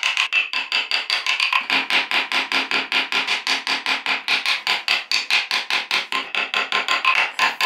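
Background music: a fast, evenly pulsed plucked-string or synth pattern of about five or six notes a second, with a lower part joining about two seconds in.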